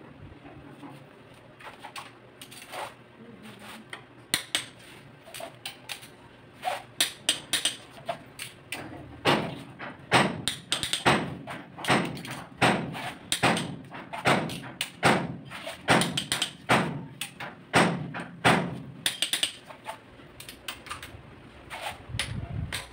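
Click-type torque wrench working the cylinder head bolts of a Mitsubishi 4D34 diesel engine on the final torque pass to 110 ft-lb. It gives a run of sharp metallic clicks, about two a second, that grow louder partway through and stop a few seconds before the end.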